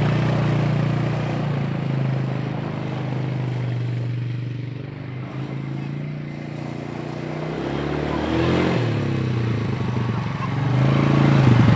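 Polaris Scrambler ATV engine pulling away and fading as it rides off, then revving and growing louder as it comes back around.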